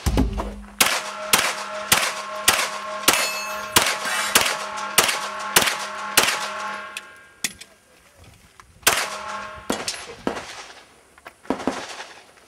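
A fast string of about sixteen pistol shots over the first seven seconds, with steel plate targets ringing as they are hit, then a few more shots after a short pause.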